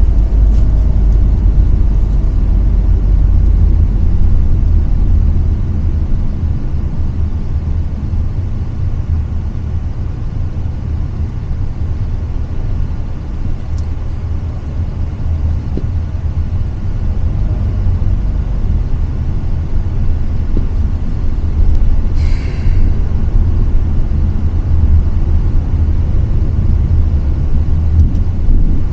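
Road and engine noise inside the cabin of a Hyundai Staria Lounge van driving on a city road: a steady low rumble, with one brief hiss about three-quarters of the way through.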